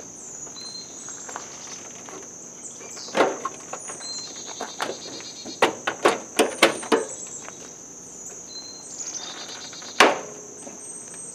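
A steady high drone of insects with short chirps, over a series of sharp clicks and knocks from plastic engine-cover panels being handled and fitted into place: one about three seconds in, a quick run of several around the middle, and the loudest single knock near the end.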